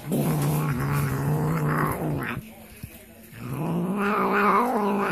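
Domestic cat making weird low, drawn-out growling yowls while eating: two long calls, the second starting about three and a half seconds in.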